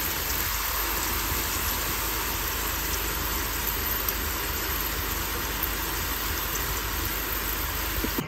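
Bitter gourd slices deep-frying in hot oil: a steady sizzle with faint scattered crackles.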